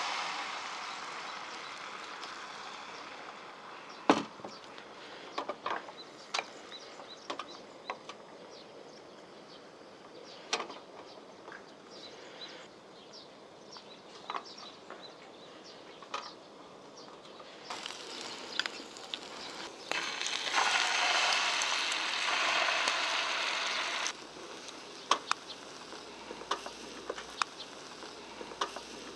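Beaten ostrich-egg mixture sizzling in hot oil in a square rolled-omelette pan as it is poured in. The sizzle fades over the first few seconds, then swells again for several seconds about two-thirds of the way through. Scattered light clicks of chopsticks against the pan and omelette run through it.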